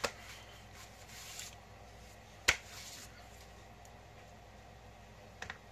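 Hands working on a sandwich: a few sharp clicks or taps, the loudest about two and a half seconds in and a quick pair near the end, with brief light rustling early on.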